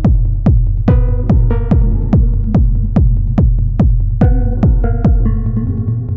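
Elektron Model:Cycles groovebox playing a techno pattern: a pitched kick drum about twice a second over a steady bass, with short synth chord stabs. The kick drops out near the end.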